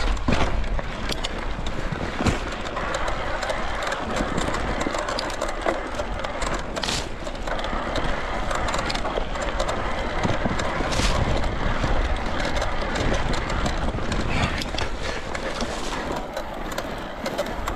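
Electric mountain bike being ridden along a dirt singletrack trail: continuous tyre and wind noise, with frequent sharp rattles and knocks from the bike jolting over roots and rocks.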